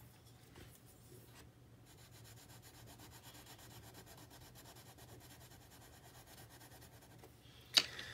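Caran d'Ache Luminance colored pencil scribbling a swatch onto notebook paper, a soft scratchy rubbing made of many quick, even back-and-forth strokes. A sharp click comes near the end as the pencil is set back down in its box.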